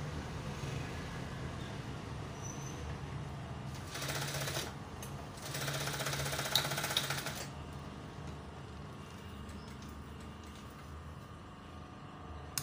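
Industrial lockstitch sewing machine stitching a shoulder seam in two runs: a short burst about four seconds in, then a longer run of about two seconds, with a low hum underneath.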